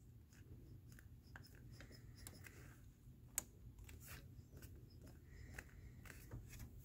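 Near silence with faint scattered clicks and light rubbing, and one sharper click about halfway through.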